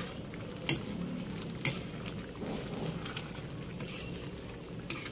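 Metal utensil stirring a thick simmering stew of pork and pig's blood in a pan, clinking sharply against the pan twice in the first two seconds and once more faintly near the end, over a low steady cooking noise.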